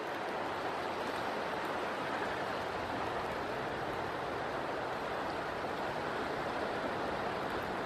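Steady rush of flowing river water, even and unbroken, with no duck calls.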